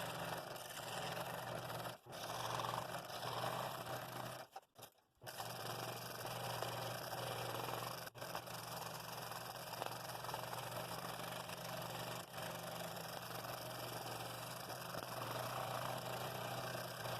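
Scroll saw running and cutting through a stack of 1/4-inch wood: a steady motor hum under the rasp of the reciprocating blade. It breaks off briefly a few times.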